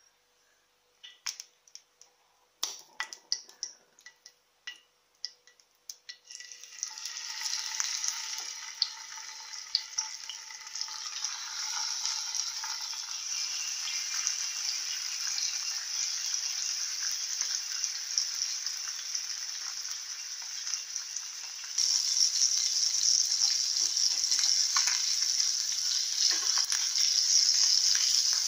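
Masala-coated sardines frying in hot coconut oil in a pan: a few sharp clicks and pops in the first seconds, then a steady sizzle from about six seconds in that grows louder near the end.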